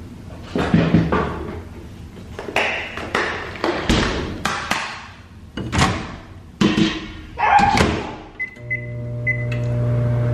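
Knocks and clunks of food containers being handled and the refrigerator and microwave doors opening and shutting. Near the end come three short keypad beeps, then the microwave oven starts up and runs with a steady hum as it heats the food.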